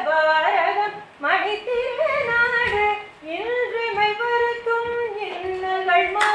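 A woman's voice singing a slow melody in long held and sliding notes, with short pauses between phrases.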